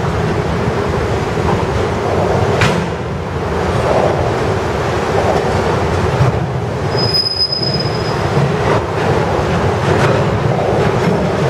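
Autorack freight cars rolling past at close range: the steady rumble of steel wheels on the rails, with a brief high wheel squeal about seven seconds in.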